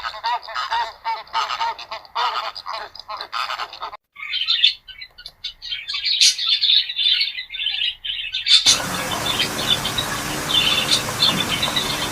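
Birds calling in three short clips. First comes a run of repeated pitched calls, several a second. From about four seconds in there are high chirps, and from about nine seconds in there is chirping over a steady hiss.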